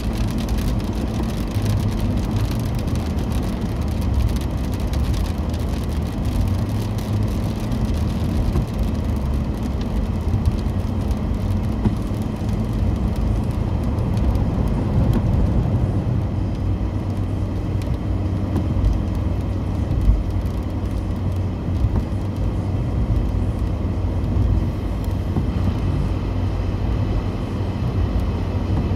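Steady low rumble of engine and road noise inside a moving car's cabin, tyres running on a wet road.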